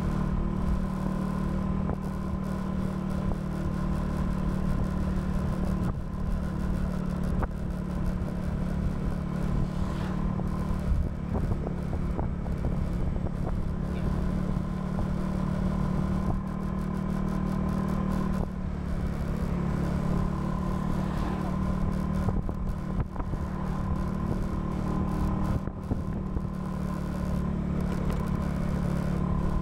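Honda scooter's engine running steadily at cruising speed under a ragged wind rumble on the action camera's microphone, with a brief drop in level about two-thirds of the way through.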